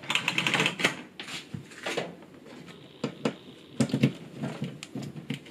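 Hands fumbling in the tight gap behind a microwave oven at a wall outlet: irregular knocks, clicks and rustling scrapes, with a sharper pair of knocks about four seconds in.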